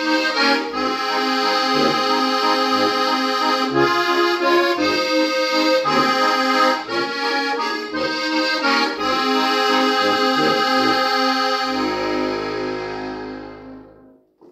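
Steirische Harmonika (Styrian diatonic button accordion) playing a folk-pop tune with a steady pulsing bass under the melody. About twelve seconds in it settles on a held final chord with a sustained deep bass, which fades out just before the end.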